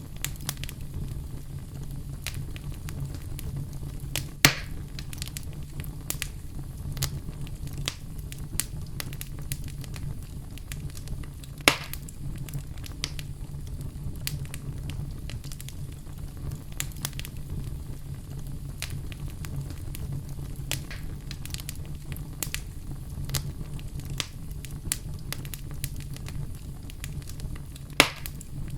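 Campfire burning steadily with a low rumble and frequent crackles and pops of the wood, a few of them sharper and louder.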